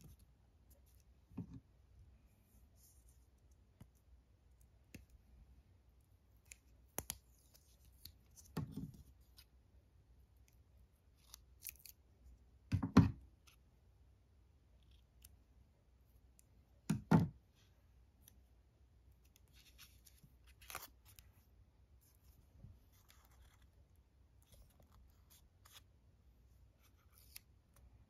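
Small scissors snipping thread, among quiet rustles of origami paper and string. The sounds come as scattered short clicks, the two loudest a little before halfway and again about two-thirds of the way through.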